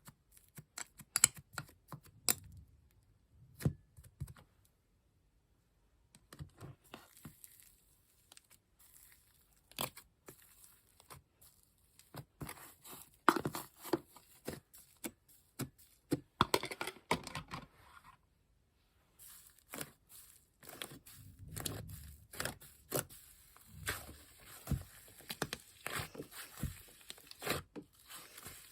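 Slime being pressed, stretched and squeezed by hand, giving irregular sticky clicks, pops and crackles. The sound pauses briefly twice.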